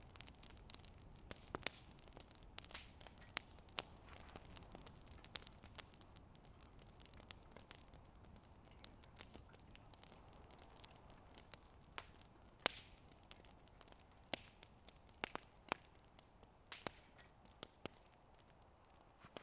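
Campfire crackling, with irregular sharp pops from the burning wood.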